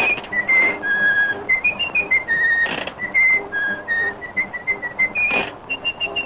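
Whistled tune of quick, bright notes stepping up and down in pitch, with a few short noisy hits between the notes.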